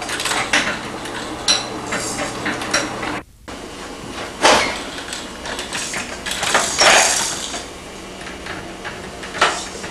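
Irregular clatter of sharp clicks and knocks from hard household objects, like dishes and utensils being handled. The sound drops out briefly about a third of the way in.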